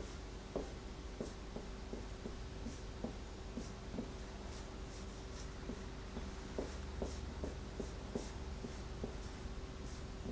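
Dry-erase marker writing on a whiteboard: a series of short, irregular squeaks and scratches as strokes are drawn, over a faint steady hum.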